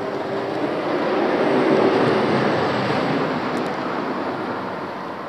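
A road vehicle passing, a steady rumble that swells to a peak about two seconds in and then fades away.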